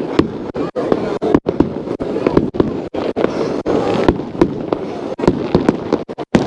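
New Year fireworks going off: a dense, unbroken barrage of sharp bangs, several a second, over a continuous rumble of further explosions.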